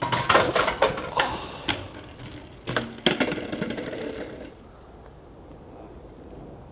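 BMX bike clattering through a trick attempt: a fast rattle and scrape with several hard impacts, with two more hits about three seconds in, dying away after about four and a half seconds.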